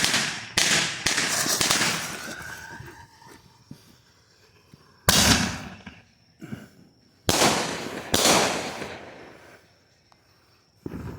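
Consumer firework mortar shells launching and bursting: a series of sharp, loud bangs, several in quick succession in the first second or so, more about five seconds in and again around seven to eight seconds, and one near the end. Each bang trails off in crackle and echo.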